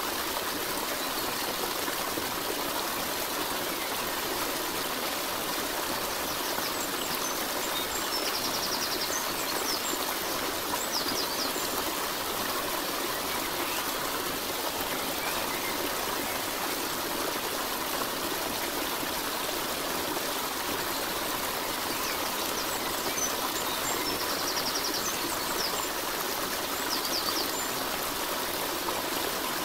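Steady running-stream sound, water trickling and splashing without a break, with faint high chirps twice, about a third of the way in and again near the end.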